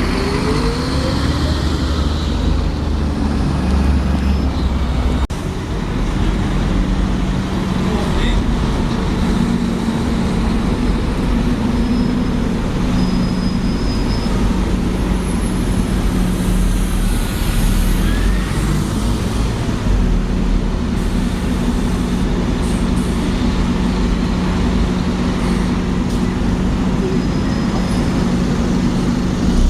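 City street traffic with a heavy road vehicle's engine running steadily, with a brief break in the sound about five seconds in.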